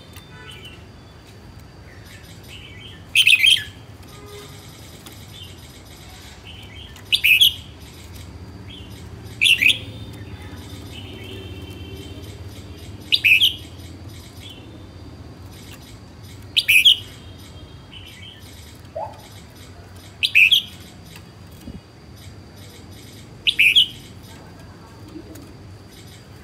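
Caged red-whiskered bulbul calling: seven loud, short, high phrases spaced irregularly every 2 to 4 seconds, with fainter chirping between them.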